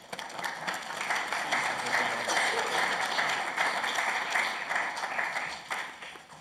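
A small gathering of people applauding. The clapping builds up over the first second and dies away near the end.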